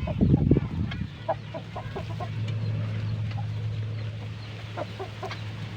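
Chickens clucking in short, scattered notes over a steady low hum, after a brief low rumble at the start.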